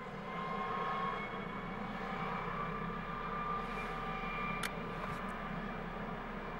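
MD 902 Explorer medevac helicopter running on the ground with its main rotor turning, its twin turbine engines giving a steady high whine over the rotor noise before lift-off.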